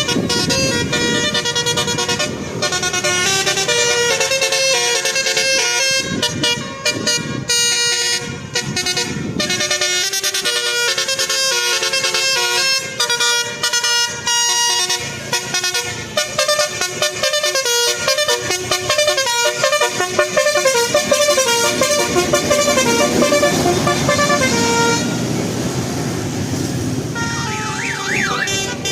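Bus 'telolet' horns: a set of tuned air horns playing quick multi-note tunes almost without pause, with engine noise underneath at times. Near the end there is a short warbling, siren-like tone.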